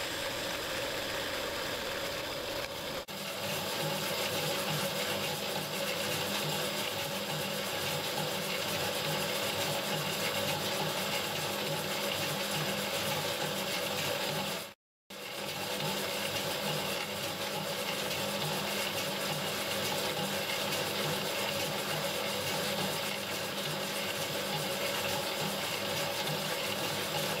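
A metal lathe running as it turns a steel workpiece for about three seconds. Then a small metalworking shaper runs with a steady repeating rhythm as its ram strokes back and forth, squaring up a steel block, with a brief break in the sound near the middle.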